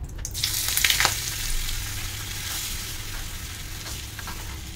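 A lump of butter dropped into hot oil in a small tadka pan, sizzling hard just after it goes in, then settling to a steadier fizz as it melts and foams. A steel spoon stirs it with a few light clinks against the pan.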